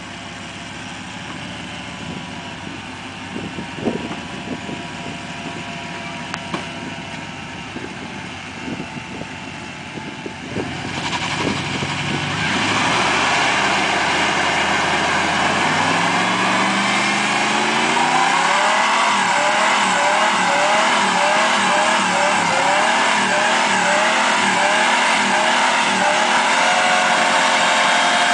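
Pickup truck engine idling with a few short revs, then about twelve seconds in revving up and holding at high revs while the rear tyres spin and screech in a burnout.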